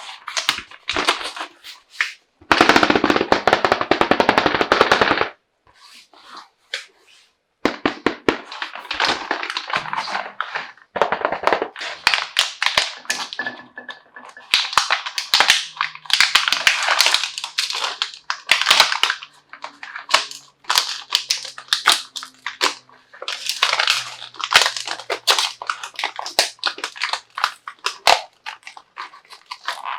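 Close-up handling of a plastic toy doctor set and its packaging: crinkling wrap, clicks and taps of plastic pieces. A few seconds in, there is a dense stretch of rapid rasping, like wrap or tape being torn open.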